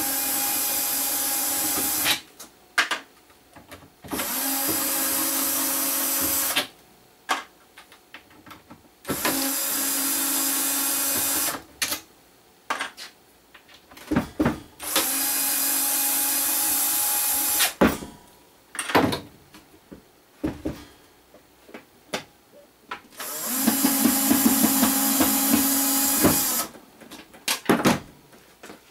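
Cordless drill-driver backing screws out of an amplifier's case: five runs of steady motor whine, each two to three seconds long, with clicks and knocks of handling between them.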